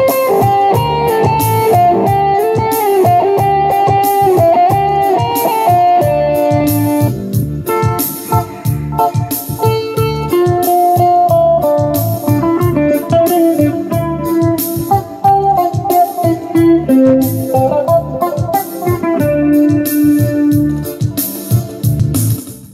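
Background music: a guitar-led instrumental with a steady beat, fading out at the very end.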